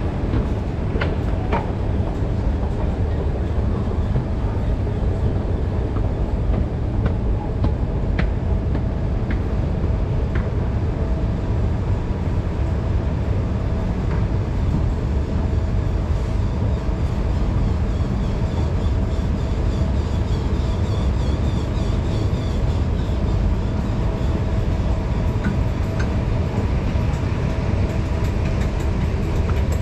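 Moving escalator running steadily: a low rumble with a constant hum and a few faint clicks, heard while riding on it.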